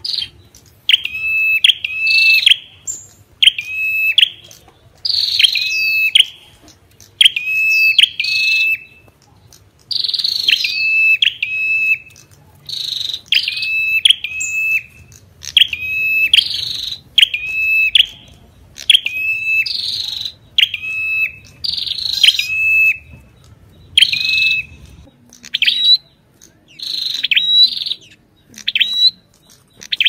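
Ashy tailorbird (Orthotomus ruficeps) singing: loud, short, sharp phrases repeated about once a second.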